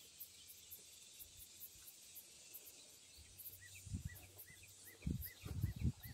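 Quiet outdoor ambience of insects chirping in quick high pulses. From about halfway, a bird repeats a short call about three times a second, and a few dull low thumps come in the last two seconds.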